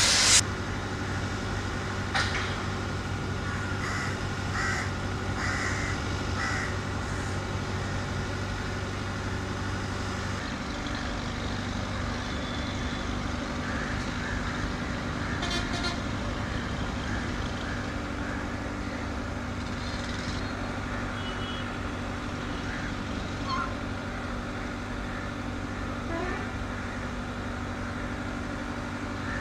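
Steady low engine hum, its pitch shifting about ten seconds in, with crows cawing about four times a few seconds in.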